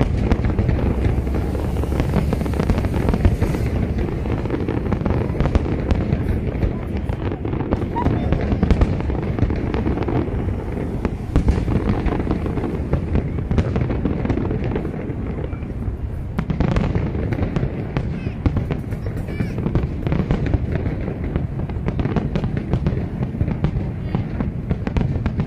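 Aerial fireworks display going off non-stop: a rapid, unbroken run of bangs and crackles from many shells bursting together.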